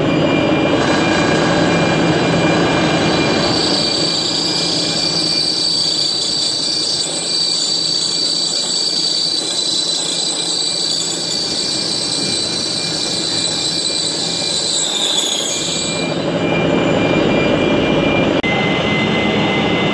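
End mill in a Bridgeport milling machine cutting into a steel trepanning-tool body, a continuous machining noise with steady high ringing tones. About fifteen seconds in the high tone drops in pitch and stops as the cut ends, leaving the machine running.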